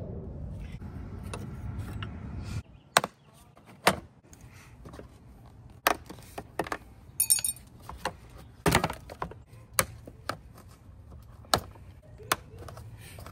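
Scattered sharp clicks and knocks of hand tools and plastic and metal parts being handled while the intercooler is unbolted and its plastic air guide pulled free, with a brief metallic jingle about seven seconds in. Before that, a steady low rumble cuts off abruptly about two and a half seconds in.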